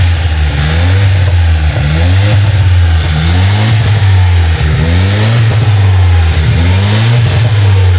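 Honda Accord's 1.5-litre turbocharged four-cylinder engine revved repeatedly while the car is parked, each throttle blip rising and falling about once a second, to rock the engine on its new upper torque mount.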